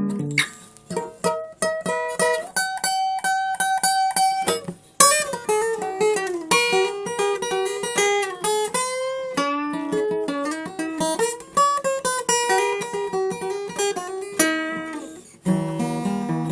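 Solo acoustic guitar playing an instrumental piece: a picked melody with some strummed chords and notes that glide in pitch. A high note rings for about two seconds a few seconds in, and low bass notes come back near the end.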